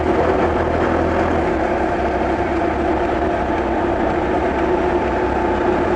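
Kawasaki ZX-12R's inline-four engine running at a steady cruising speed, with wind and tyre noise. The pitch and loudness hold even, with no revving.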